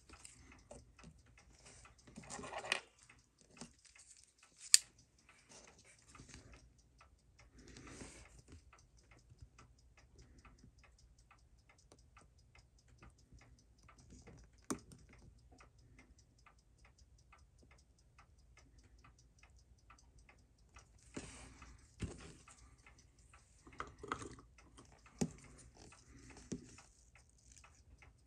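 Steady fast ticking, several ticks a second, with a few sharp metallic clicks and taps of steel tweezers and a screwdriver working on a watch movement held in a movement holder. The loudest click comes about five seconds in.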